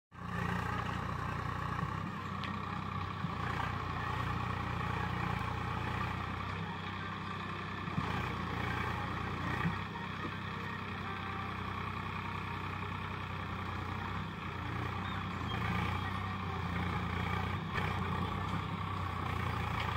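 Swaraj 744 FE tractor's three-cylinder diesel engine running steadily under load while pulling an 11-tyne cultivator through dry soil, with a couple of brief knocks about midway.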